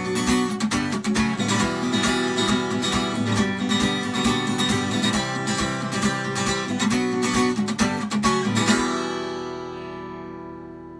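Acoustic guitar strummed in a steady rhythm. About nine seconds in it ends on a final chord that rings on and fades away.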